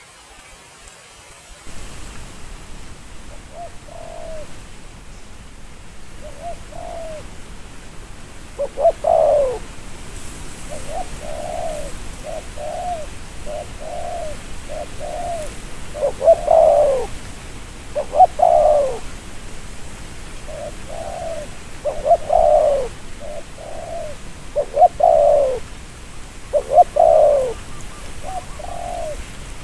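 Spotted dove cooing: phrases of soft coos with louder, drawn-out coos every couple of seconds, beginning a few seconds in, over a steady hiss.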